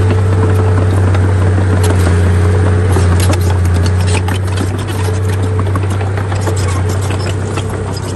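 Bulldozer's diesel engine running under load with a steady low drone, overlaid with many sharp clicks and scrapes of soil and rock moving, thickest in the middle of the stretch and easing slightly near the end.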